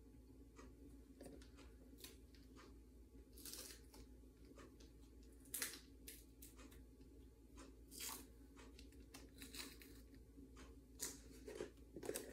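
Faint, scattered rustles and scrapes from small objects being handled on a tabletop, with a slightly louder scrape about five and a half seconds in and a few more near the end.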